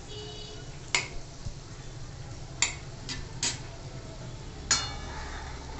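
Metal spoon clinking against a pan while paneer pieces are turned in ghee: a handful of separate clicks and knocks, the one near the end ringing briefly.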